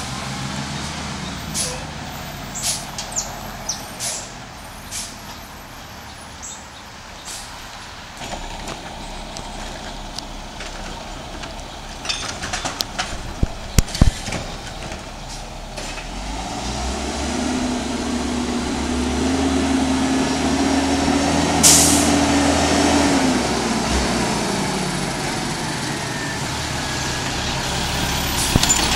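Diesel engine of a small GMC garbage truck with a Heil Rapid Rail automated side-loader, running on a residential street. A little past the middle it swells into a louder, steady whine that holds for several seconds and then fades. Scattered sharp clicks come in the first half, and a short sharp hiss like an air-brake release sounds in the loud stretch.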